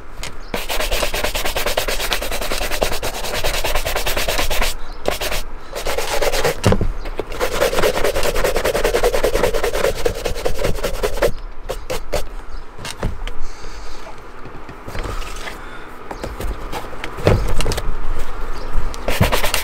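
Pig-bristle shoe brush rubbed quickly back and forth over leather boots, buffing in polishing cream to work it into the leather and bring up a shine. It makes a dense, scratchy rustle of rapid strokes, with a few short pauses.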